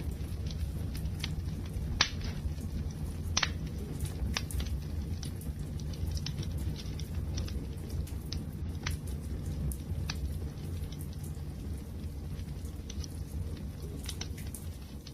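Wood fire burning, a steady low rumble with sharp crackles and pops every second or so.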